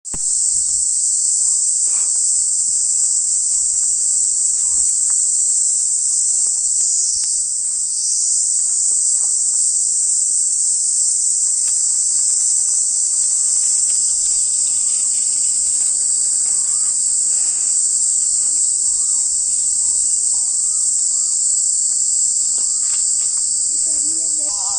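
Loud, steady, high-pitched insect buzz, one unbroken drone.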